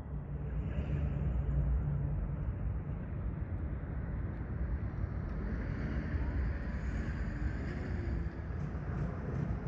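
Steady low rumble of road traffic, with a vehicle passing in the middle.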